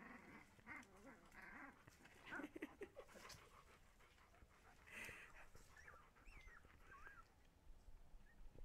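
Husky puppies whimpering faintly, with small squeaky cries that wobble up and down in pitch about six seconds in.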